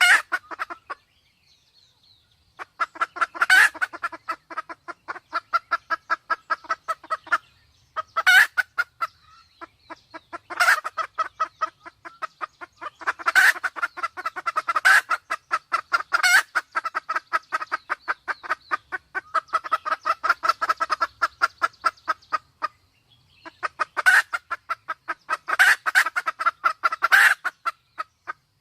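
Sumatran red junglefowl calling: long runs of rapid clucking, several notes a second, with louder sharp calls breaking through every second or few. The runs stop briefly three times.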